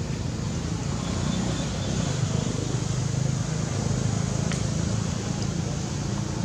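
Steady low rumble of background noise, a little stronger in the middle, with a light click about four and a half seconds in.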